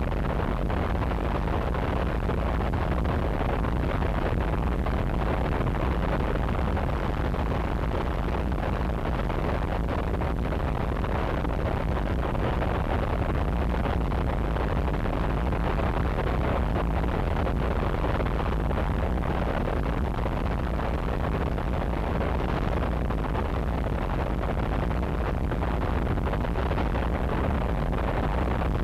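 Harsh noise wall from a cassette: a dense, unchanging mass of distorted static, heaviest in the bass and dull at the top, with no rhythm, pitch or breaks.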